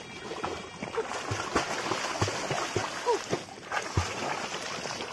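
River water splashing and sloshing around a swimmer paddling through it, with irregular short plops.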